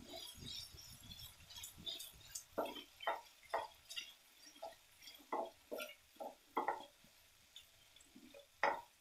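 Wooden spatula stirring a thick, sticky sauce in a nonstick frying pan: soft, irregular squelching and scraping strokes.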